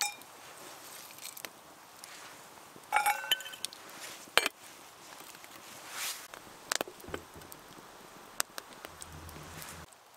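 Camp handling noises: a few sharp knocks and clicks, with a brief ringing clink about three seconds in, over a faint steady hiss.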